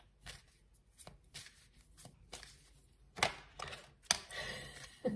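Deck of divination cards being handled and shuffled by hand: irregular crisp taps and snaps of the cards, louder from about three seconds in, running into a papery rustle near the end.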